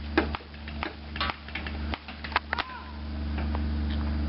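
Paintball markers firing, a string of sharp irregular pops in the first half or so, over a steady low rumble that grows louder and more even near the end.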